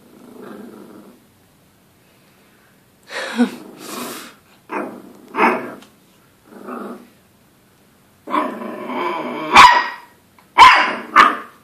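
Dachshund puppy growling and barking at its own reflection in a mirror. A faint low growl at first, then a few short barks, then a longer growl that breaks into three sharp, loud barks near the end.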